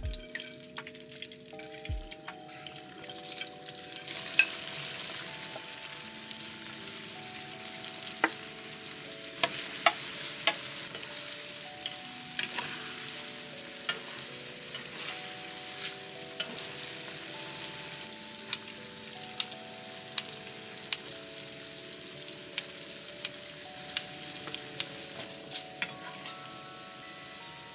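Coated chicken pieces and rice cakes sizzling in hot oil in a wok, the sizzle swelling about three to four seconds in as they go into the oil. A metal spatula clicks sharply against the pan many times as the pieces are stirred.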